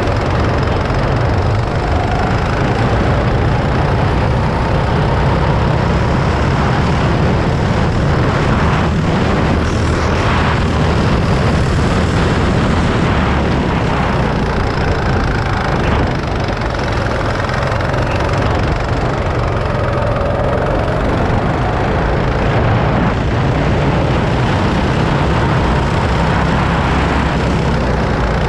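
Go-kart engine running steadily under way, heard from the driver's seat, with a brief dip in level about halfway through.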